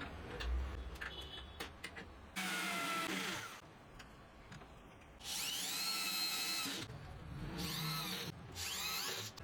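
Power drill driving screws into plywood in four runs. Each run lasts about a second or more, and the motor whine rises and falls in pitch as the trigger is squeezed and let go.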